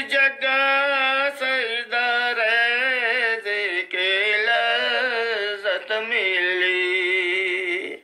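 A singer's voice in an Urdu devotional naat, holding long wavering notes with pitch slides, in phrases broken by short pauses every couple of seconds.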